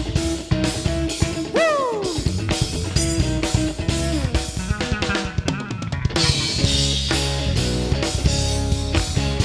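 A band playing an instrumental passage: drum kit with bass drum and snare under a held note, which slides down in pitch about two seconds in. A quick drum fill runs just before the six-second mark, then the full band comes in with chords.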